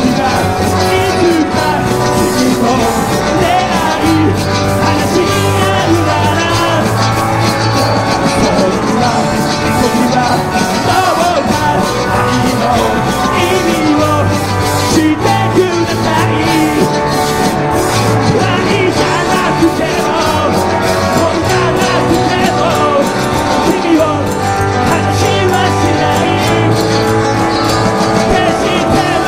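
Live rock band playing a Japanese punk-rock song: a man singing over electric guitars, bass and drums.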